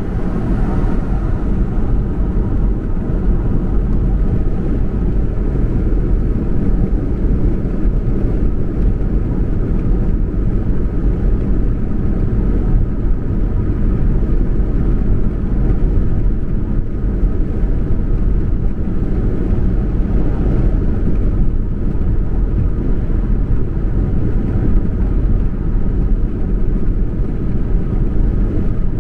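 Car driving at steady speed: constant low road noise with no change in pitch or level.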